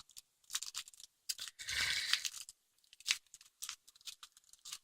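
Packaging being worked open by hand: scattered small clicks and scrapes, with a longer crinkling tear about two seconds in.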